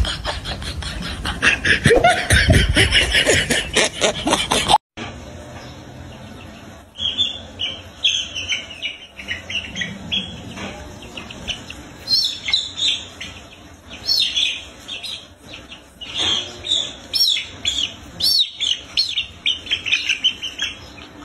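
A louder, dense jumble of sound for the first five seconds or so cuts off abruptly. After that, a young chick peeps again and again, high-pitched cheeps in quick runs.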